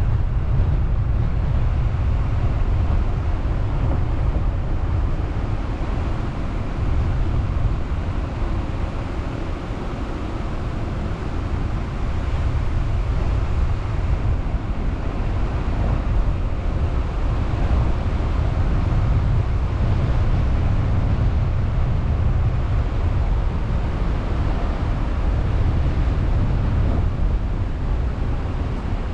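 A car on the move: steady low road and wind rumble.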